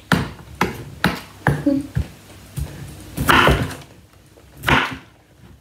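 Kitchen knife cutting raw cauliflower on a wooden cutting board: a run of about six sharp knocks as the blade meets the board, then two longer, noisier knife strokes through the florets about three and four and a half seconds in.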